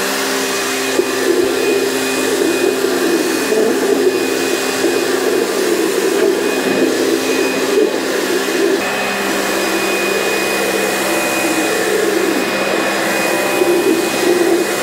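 Kärcher K3 Power Control electric pressure washer running with its round floor-cleaner attachment spraying water onto ceramic tile: a steady motor-and-pump hum and whine over a spray hiss, which shifts slightly in tone about nine seconds in. The floor cleaner works at the medium pressure setting.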